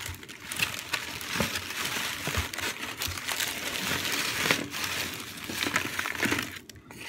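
Paper or plastic food packaging being crumpled and handled close to the microphone: a dense, irregular run of crackles and rustles.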